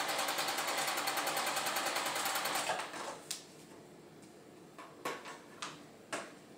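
Sewing machine running fast, stitching a seam through glue-basted quilt pieces, then stopping about three seconds in. A few light clicks and taps of handling follow.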